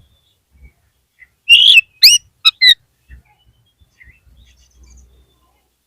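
Oriental magpie-robin calling: a loud burst of sharp notes and rising whistles starting about one and a half seconds in and lasting just over a second, followed by a few faint chirps.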